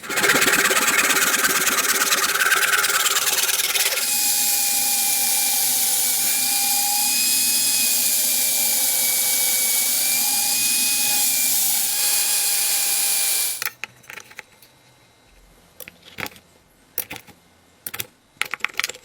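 A power tool running under load, with a whine that wavers in pitch, cuts off suddenly about thirteen seconds in. A few scattered clicks and knocks follow.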